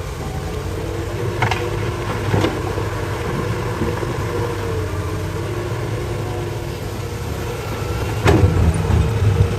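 Hitachi excavator's diesel engine running steadily as it digs rock, with a few sharp knocks of the bucket against rock, the loudest about eight seconds in.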